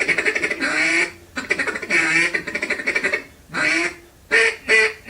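A duck call blown by a trained dog: a fast chattering feeder call at first, about ten notes a second, then a run of separate quacks, the last few short and evenly spaced.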